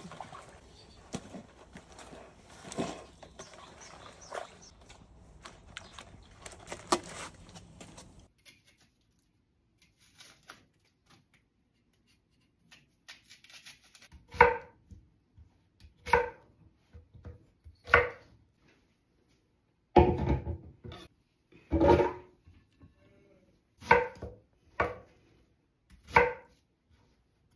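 Hands turning salted young radish greens in a stainless steel basin, a rustling patter with a few clicks. After a quiet gap, a kitchen knife chops a peeled Korean pear into chunks: about nine separate cuts, roughly two seconds apart.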